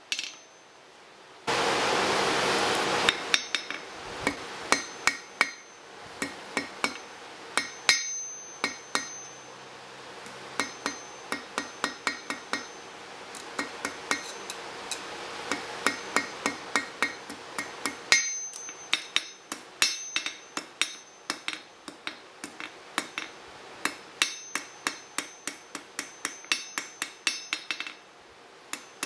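Hand hammer striking a thin red-hot steel rod on a steel anvil: sharp, ringing blows a few per second, in runs with short pauses. About two seconds in there is a loud burst of rushing noise lasting a second or two.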